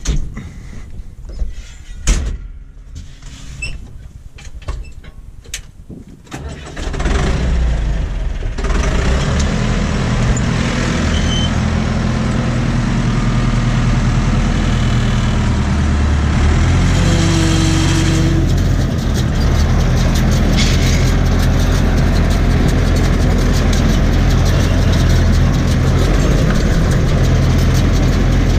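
Knocks and clunks of the tractor cab as the driver climbs in. About six seconds in, the tractor's diesel engine starts and settles into steady running.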